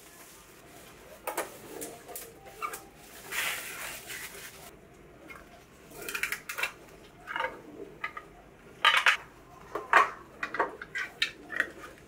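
Plastic parts of a Nespresso CitiZ & Milk coffee machine being handled: scattered clicks, light rattles and rustles, with a few sharper clacks near the end as the drip tray is slid into its slot in the machine's base.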